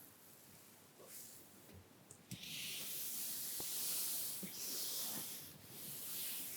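Soft makeup brushes sweeping lightly across the skin of a back, a high, airy hiss that starts about two seconds in and swells and fades with each long stroke.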